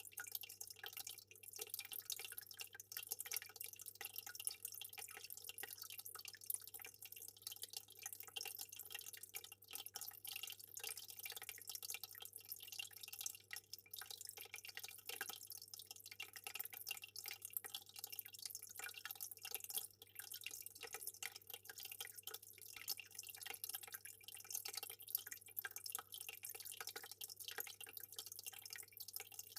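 Water trickling and dripping in a fish tank, a steady patter of small splashes without pause, over a faint steady low hum.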